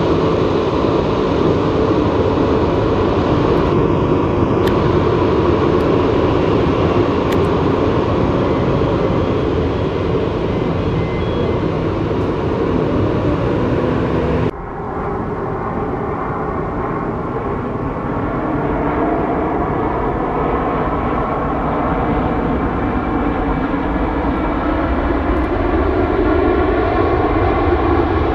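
Airbus A340-300 jet engines running steadily as the airliner taxis. About halfway through, the sound cuts abruptly to another stretch of jet airliner engine noise whose tones slowly drift in pitch, with an Airbus A330-300 on the runway near the end.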